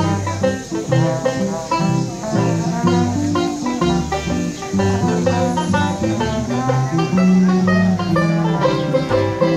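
Live small band playing: a resonator banjo strumming chords over an electric bass line, with a trombone and an archtop guitar, in a ragtime-style tune.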